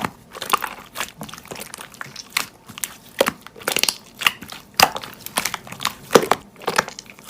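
Hands playing with slime, pressing and poking it so that it gives off irregular crackling clicks and pops.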